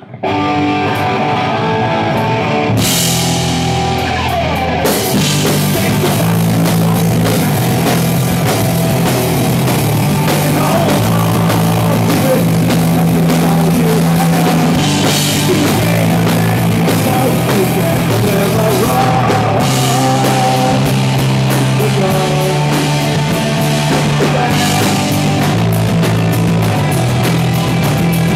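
Live punk-rock band playing loud: distorted electric guitars, bass guitar and a drum kit with crashing cymbals, kicking in together right at the start, with a man singing into the microphone at times.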